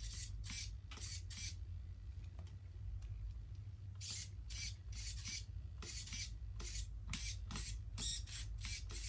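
Irregular short rubbing and scraping sounds, a dozen or so strokes in quick, uneven succession, over a steady low hum.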